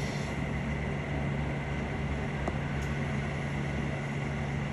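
Steady background hum with an even hiss, unchanging throughout, like a running machine.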